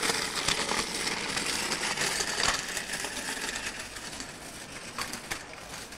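Rattling and clicking of a child's bicycle with training wheels rolling over pavement, with a few sharper clicks scattered through it.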